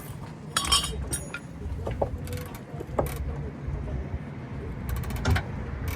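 Scattered clanks and knocks of hand tools on metal, the loudest about two thirds of a second in, over a steady low rumble.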